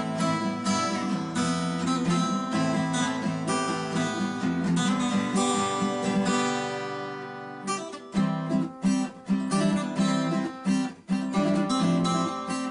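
Background music of acoustic guitar strumming. A chord is left ringing and fading about six seconds in, then quick, clipped strums follow.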